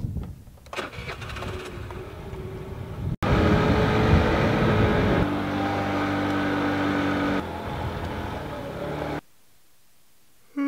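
Motor scooter engine running as it is ridden, with wind noise. It gets much louder about three seconds in, holds a steady hum through the middle, and drops away near the end.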